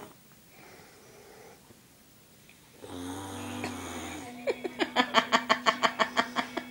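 A man snoring: one long, deep snore about three seconds in. It is followed by a fast run of short sharp pulses, about five a second, which is louder than the snore.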